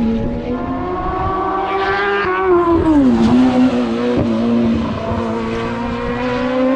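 A race car engine under hard acceleration on a hill climb: its pitch rises, drops sharply about three seconds in at its loudest as it goes past, then climbs again as it pulls away.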